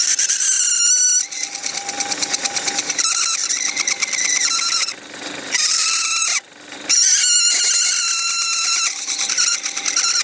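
A cutting tool squealing against a spinning layered-plastic workpiece on a lathe as a taper is turned. The high-pitched squeal comes and goes as the tool is fed in, breaking off briefly about five seconds in and again around six and a half seconds.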